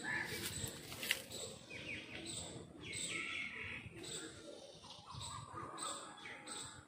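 Birds chirping in short, repeated high calls, with a sharp click about a second in.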